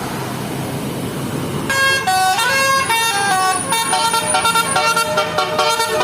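Bus engine and road noise, then a bus's telolet basuri musical horn comes in a little under two seconds in, playing a quick tune of short, changing notes.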